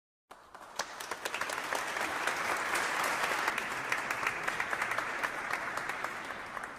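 Audience applauding: many hands clapping together, starting suddenly, swelling over the first couple of seconds, then slowly tapering off near the end.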